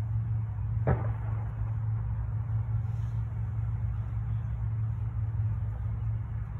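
Steady low rumble, most likely wind on the phone's microphone, with one sharp knock about a second in.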